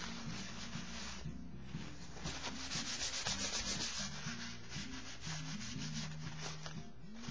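A wad of paper towel rubbed briskly back and forth over a sketchbook page, blotting and lifting wet acrylic ink, a scratchy rubbing in quick repeated strokes.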